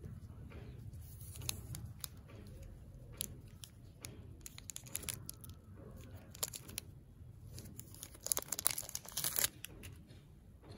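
Nestlé Munch bar's plastic (PP) wrapper being handled and torn open: scattered crinkling and crackling, with a louder run of tearing about eight seconds in.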